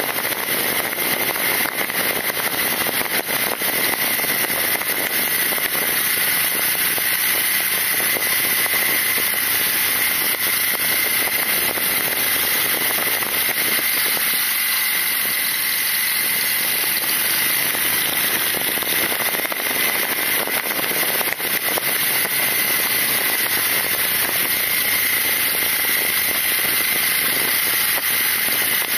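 BMW R nineT's air-cooled boxer twin engine running steadily under way, largely buried under heavy wind and road noise on the fork-mounted microphone.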